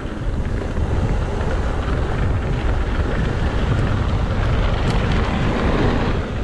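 Steady wind noise rumbling on the camera microphone as a mountain bike rolls down a dirt trail, mostly low rumble with some hiss above it.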